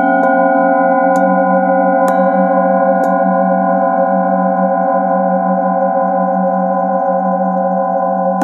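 Metal singing bowl sung with a padded mallet, giving a steady layered ringing hum with a wobbling low tone. There are a few light knocks of the mallet in the first three seconds, then the tones ring on smoothly.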